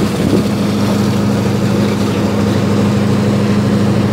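Diesel engines of the cacilheiro ferry Seixalense running steadily under way, an even low drone with a steady hum, heard on board.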